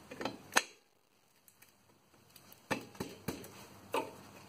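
Light metallic clicks and knocks of a drum brake shoe and its return spring being worked into place on the backing plate: two sharp clicks at the start, a quiet second, then four more knocks in the last two seconds.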